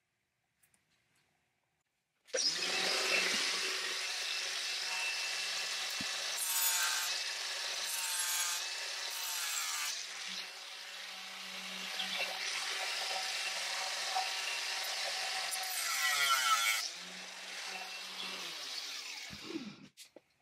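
Handheld rotary power tool running on the rusty cast-iron forge, a steady grinding, scraping noise over a constant motor hum, which spins down with a falling tone near the end.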